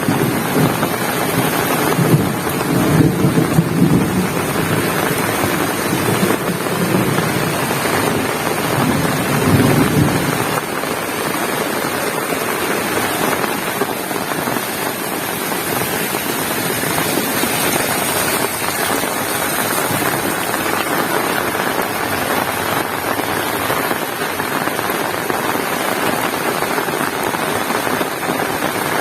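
Heavy rain falling steadily, with a low rumble through about the first ten seconds that then dies away.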